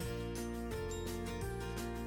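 Background music with a steady beat and bass notes that change every second or so.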